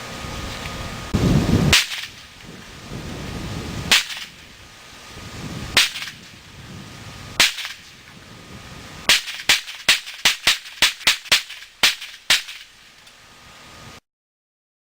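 .22 firearm shooting 40-grain rounds at a laptop screen. Four single shots come about two seconds apart, then a quick string of about ten shots at roughly three a second.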